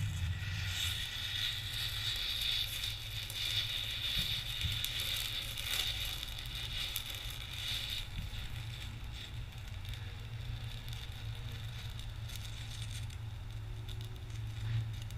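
Thermite burning with a loud hissing crackle that holds for about eight seconds, then dies down, over a steady low rumble.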